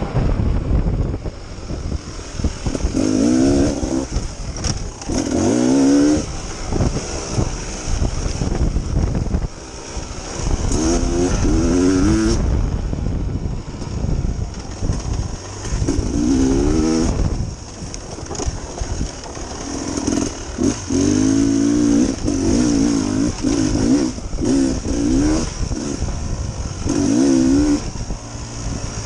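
Dirt bike engine revving up and down repeatedly while riding a trail, its pitch climbing in short pulls every couple of seconds over a constant low rumble.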